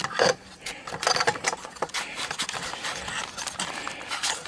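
Handling noise of a camera being taken off its tripod: irregular rubbing, scraping and small clicks close to the microphone.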